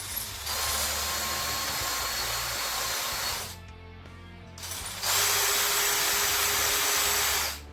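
Power drill running in two bursts of about three seconds each, with a pause between, as it works mounting holes a little higher.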